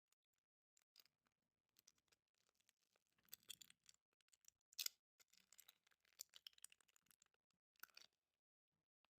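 Faint handling of packaging: scattered clicks, scratches and rustles, with louder bursts about three and a half, five and eight seconds in.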